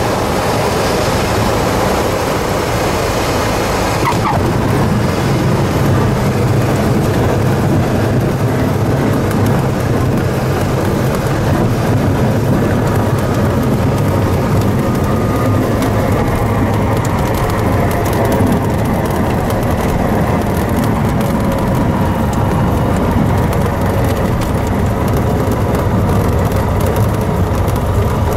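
Cessna 172's propeller engine running at low power as the plane rolls down the runway after landing, heard inside the cockpit as a steady low drone. The airflow hiss over it thins out about four seconds in and again past the middle as the plane slows.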